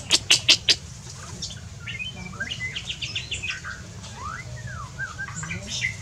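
Several birds calling in a mixed aviary: a quick run of five sharp, loud notes at the start, then assorted chirps, short whistles and a rising-and-falling whistled note.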